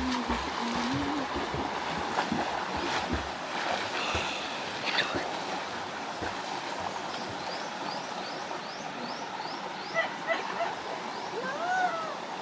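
River water rushing steadily, with scattered splashes. About midway, a run of short high chirps repeats roughly twice a second.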